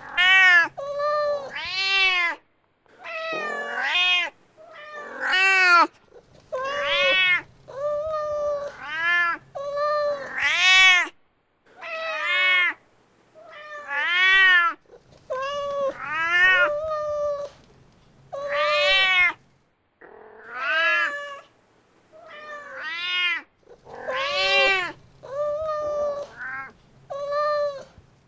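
Mother domestic cat calling for her kitten: a long run of meows, each rising then falling in pitch, some coming in quick pairs, about one call every second or so.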